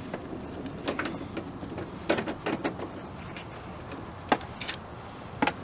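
Irregular light clicks and knocks of hand tools being worked on the strut's top mount bolts.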